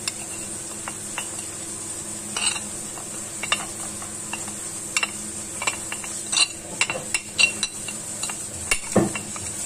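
Metal spoon scraping and tapping on a ceramic plate and the rim of a glass grinder jar as ground spices and mace are pushed in, with scattered clinks that get louder in the second half and a heavier knock near the end. A steady hum runs underneath.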